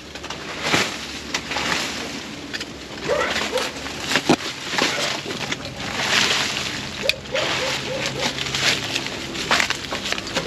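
Dry vines, leaves and rubbish rustling and crackling in uneven bursts as they are pushed and pulled aside by hand, with a couple of sharp snaps or knocks.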